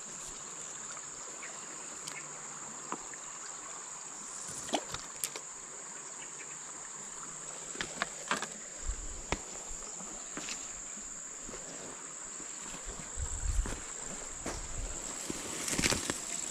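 Steady high-pitched insect drone, with scattered sharp clicks and knocks and a few low thumps.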